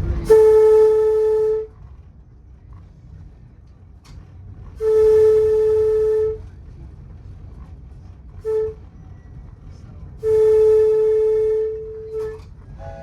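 Locomotive air horn sounding the grade-crossing signal: long, long, short, long.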